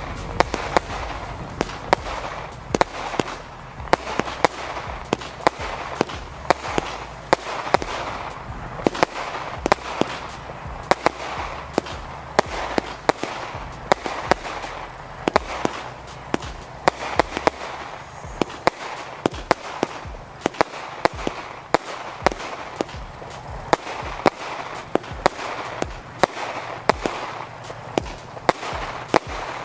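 Final Showdown fireworks compound firing a rapid sequence of shots: sharp bangs about two a second over a steady hiss.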